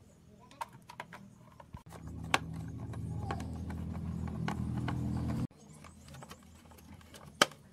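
Yamaha Sirius 110cc motorbike engine being cranked over: a steady mechanical run for about three and a half seconds that cuts off suddenly, with light clicks and knocks around it.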